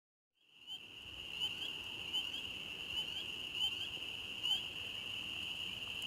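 Spring peepers calling in a dense chorus, a steady high-pitched ringing with single rising peeps standing out now and then, starting abruptly about half a second in.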